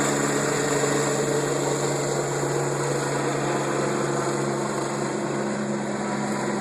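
Bell helicopter running steadily, with a constant low hum under a high turbine whine, easing off slightly in level toward the end.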